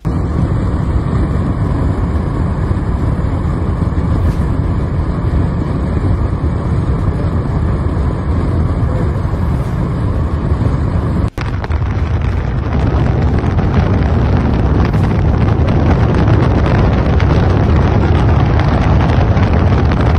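Wind buffeting a phone microphone outdoors: a steady, loud low rumble with no distinct blasts, broken by a brief drop about eleven seconds in.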